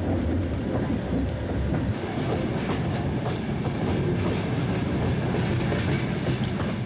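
Long-distance passenger train running, heard from on board: a steady low rumble of the wheels on the rails with faint scattered clicks.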